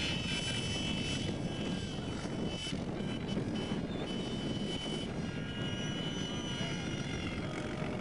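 Farm tractor engine running steadily as the tractor drives along, a continuous low drone.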